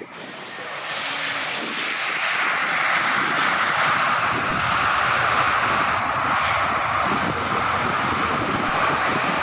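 Jet engines of an Airbus A320-family airliner running on the runway. The sound grows louder over the first few seconds, then holds steady, with a whine that slides slowly lower.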